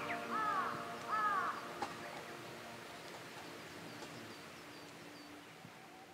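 Crows cawing, three harsh caws in the first second and a half, over a steady held background music chord that slowly fades. Faint high bird chirps follow.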